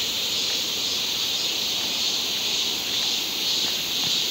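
Steady high-pitched insect chorus droning on a wooded hillside, with a few faint ticks underneath.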